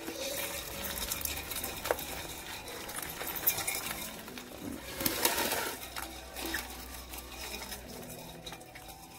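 Live field crabs scrabbling inside an aluminium pot, their legs and claws making a busy patter of small scratches and clicks against the metal. The clicking thins out near the end.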